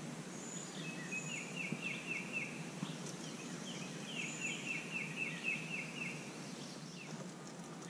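A songbird sings two rapid runs of short, falling notes, about five a second, the second run longer; a few faint, thin, higher notes come from another bird. Underneath runs a low, steady outdoor background noise.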